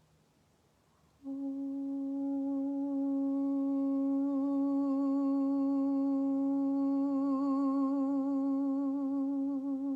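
A woman's voice singing one long held note without words, beginning about a second in, steady at first and taking on a gentle vibrato toward the end.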